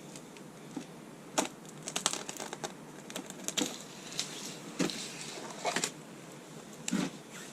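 Irregular light clicks and clatter of small hard parts being handled, about a dozen over several seconds, the loudest about a second and a half in and near the end.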